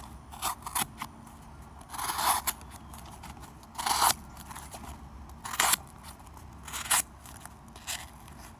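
A folding knife's 440C steel blade slicing cardboard in about five short, scratchy cutting strokes, spaced a second or so apart.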